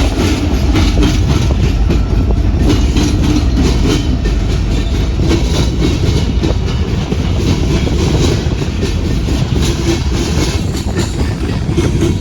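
A train rolling past close by, its wheels clicking repeatedly over rail joints above a steady, loud rumble.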